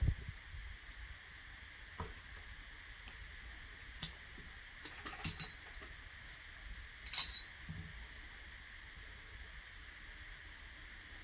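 A few light metallic clicks and knocks from a cleaning rod and jag being run with a patch through a 9 mm pistol barrel and handled, with two short clusters of clicks in the middle.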